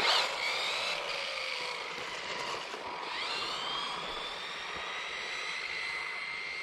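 High-speed RC car's electric motor whining as the car accelerates down the road: a high whine that climbs sharply at the start and again about three seconds in, then holds steady.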